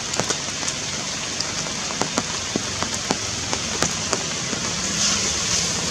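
Rain falling on forest foliage: a steady patter, with many separate drops ticking at irregular moments.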